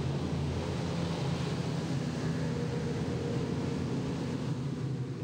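Engines of small military river boats running at speed, a steady drone over the hiss of their spray and wake.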